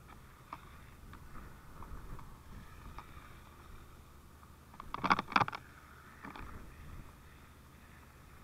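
Steady low rumble of a fire engine's pump running with hose streams spraying water. A brief loud burst of sharp noise about five seconds in.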